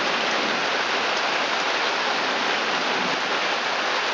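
Pouring rain, a steady even hiss with a few faint drop ticks.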